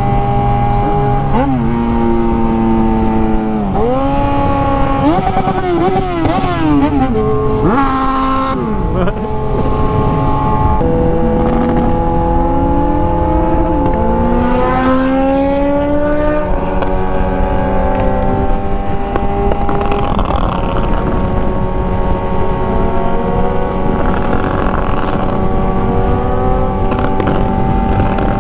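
Suzuki Bandit inline-four motorcycle engine with a remapped tune, running loudly. Several quick throttle blips between about four and nine seconds in, then slower rises in pitch, then steadier running.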